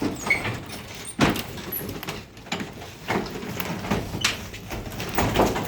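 Garage door rattling, with several irregular clunks about a second apart, as it is worked by hand and stays jammed.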